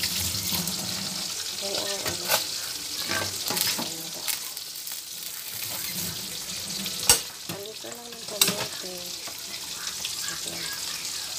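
Metal pot of leafy greens cooking on a stove: a steady hiss throughout, with a few sharp metal knocks, the loudest about seven seconds in.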